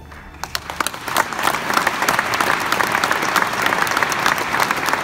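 Audience applause, building over the first second from scattered claps into a steady round of clapping, with single claps close by standing out.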